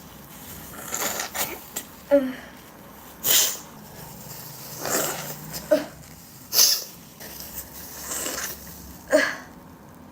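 A woman sneezing again and again: about eight short, sharp sneezes in a row.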